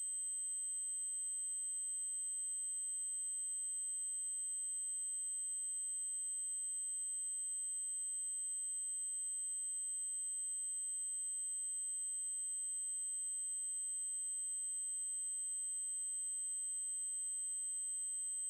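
A synthesized 8192 Hz triangle-wave tone, a single very high-pitched steady tone held unchanged throughout.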